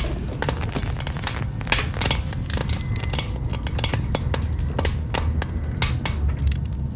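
A large fire burning in a room full of debris: a steady low rumble with frequent sharp crackles and pops.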